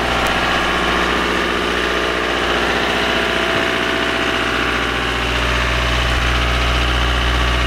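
Marine diesel generator running steadily in the yacht's engine room, a loud even drone whose low hum grows stronger about five seconds in.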